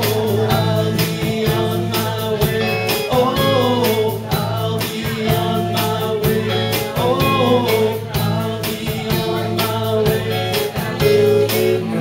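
Live rock band playing a Merseybeat-style song: electric guitars, drums keeping a steady beat, and a male lead voice singing.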